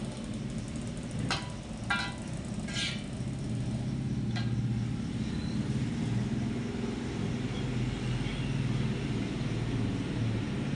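A metal spatula knocking and scraping against a wok a few times in the first few seconds, each knock ringing briefly. Under and after it a steady, low motor-like rumble with a wavering hum.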